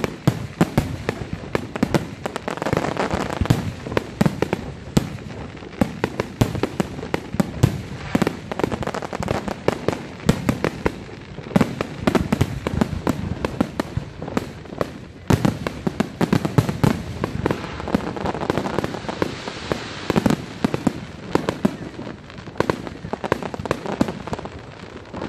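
Fireworks display: a dense, unbroken barrage of aerial shell bursts and launches, several bangs and pops a second.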